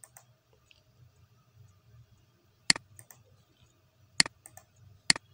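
Three sharp clicks of a computer mouse button, the first about two and a half seconds in, the next about a second and a half later and the last about a second after that, with a few fainter ticks between.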